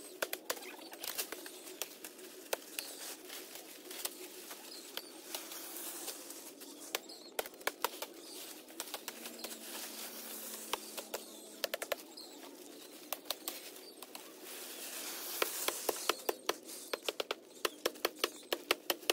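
Dense undergrowth being hacked and torn down by hand with a knife: leaves and branches rustle and thrash, with many sharp, irregular snaps and chops of twigs and stems.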